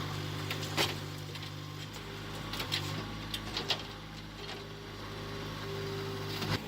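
Skid steer engine running steadily, with a few sharp clicks over it and a brief higher whine near the end.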